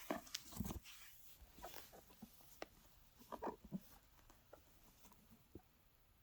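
Faint, scattered taps, clicks and rustles of makeup packaging and compacts being handled, busiest in the first second and thinning out toward the end.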